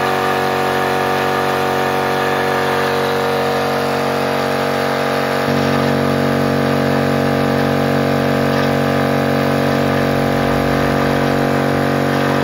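A MultiPro DCC-075/10 OW 3/4 HP electric piston air compressor running steadily with a constant motor-and-pump hum as it fills its tank. Its tone shifts slightly about five seconds in.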